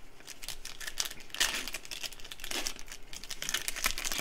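Foil wrapper of a Panini Prizm football card pack crinkling and crackling as it is torn open by hand.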